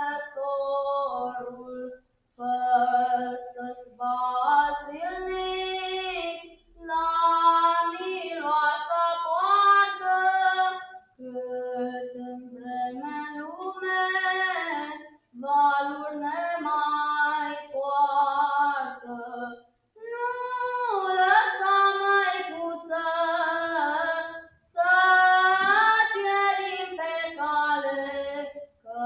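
A girl singing a folk song alone and unaccompanied, in phrases of a few seconds with short breaths between them.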